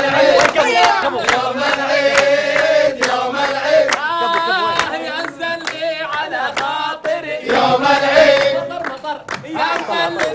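Group of men chanting a Gulf-style nasheed together, several voices on the melody, over a steady percussive beat.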